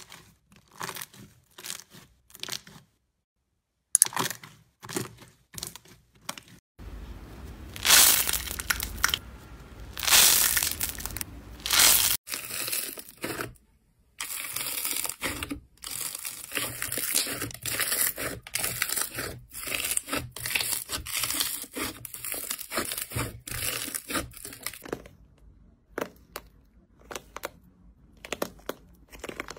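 Slime being squeezed, poked and stretched by hand, giving dense runs of sharp clicks and pops, with two brief silent breaks.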